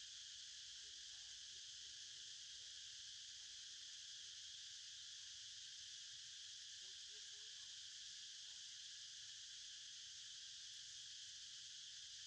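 Faint, steady insect chorus, an unbroken high-pitched buzz with no pauses.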